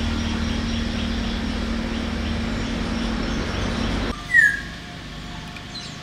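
A steady low hum and rumble with faint high chirps cuts off abruptly about four seconds in. Just after, a bird gives a single short whistled note falling in pitch, the loudest sound here, over a quieter background.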